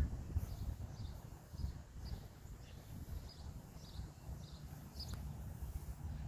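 Small birds chirping, short high notes about twice a second, over a low rumble on the microphone.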